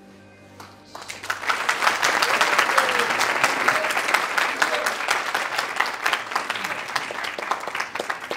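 Audience applauding, breaking out about a second in as the last held notes of music die away.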